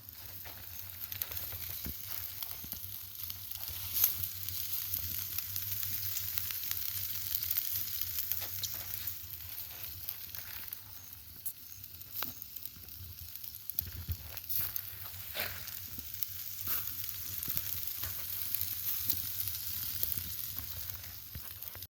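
Meat sizzling over hot charcoal on a ground fire-pit grill, a steady hiss with scattered crackling pops, one sharp pop about four seconds in. The sound cuts off abruptly just before the end.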